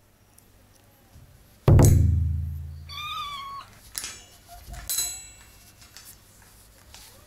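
A sudden loud, low booming hit that rings and fades over about a second, then a cat's single short meow, then two light knocks.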